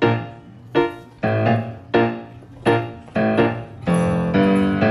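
Background music: piano chords struck about twice a second, each ringing and fading before the next, with the notes held longer near the end.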